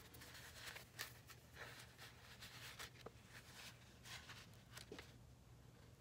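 Faint rustling and flicking of paper as the sheets of a designer paper pad are leafed through and handled, over a low steady hum.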